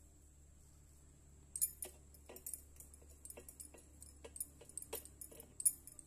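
Bangles on the wrist clinking in an irregular run of small, bright jingles, a few a second, as the hands roll a ball of dough between the palms; the jingling starts about a second and a half in.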